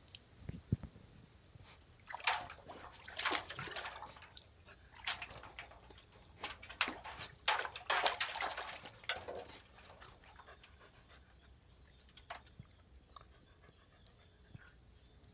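Labrador puppy splashing about in a steel basin of water, irregular splashes and sloshes that die down about two-thirds of the way through.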